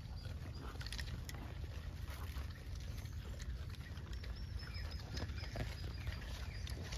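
Gray langurs handling and eating fruit from cardboard boxes: scattered small clicks and rustles over a steady low rumble, with a few faint high chirps.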